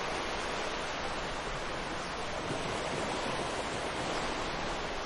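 Ocean waves washing ashore as a steady, even hiss of surf.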